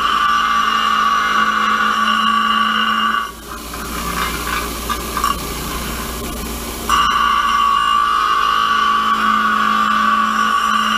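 Bench grinder grinding a small hand-held metal drive-dog part against the wheel, a steady grinding sound over the motor's hum. About three seconds in the part comes off the wheel and only the grinder runs, then it is pressed back on about seven seconds in.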